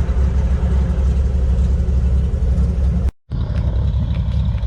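Cessna 180 seaplane's six-cylinder Continental piston engine and propeller running steadily in a loud, deep drone. The sound breaks off for a split second about three seconds in, then carries on unchanged.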